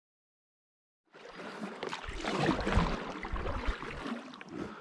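River water lapping and splashing, as around a small boat, starting abruptly about a second in after dead silence, with bursts of low rumble on the microphone in the middle.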